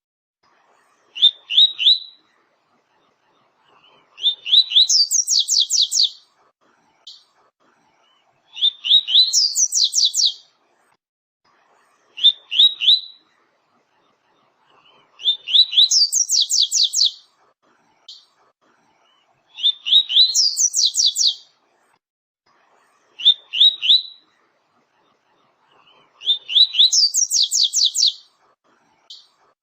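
Double-collared seedeater (coleiro, papa-capim) singing the 'tui-tui' song type: phrases repeating every three to four seconds, each of a few quick rising notes, often followed by a fast run of higher notes.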